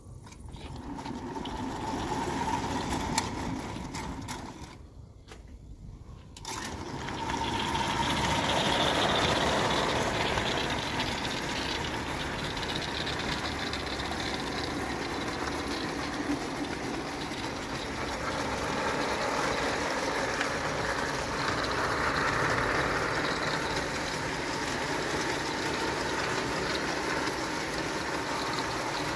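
Two spirit-fired Falk live-steam tinplate locomotives running double-headed with a freight train, a steady hissing, clattering run of the engines and their wheels on the tinplate track. The sound drops almost away about five seconds in, then comes back steadily about a second and a half later.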